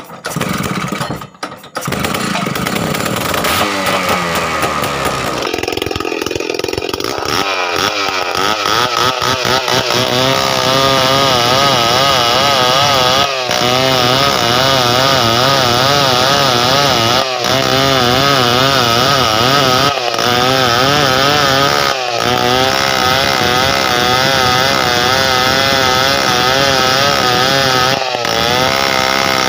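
Stihl 070 two-stroke chainsaw pull-started; the engine catches about two seconds in and revs. From about ten seconds in it runs under load cutting through a log, its pitch wavering steadily. It runs normally again now that its ignition coil wire has been repaired.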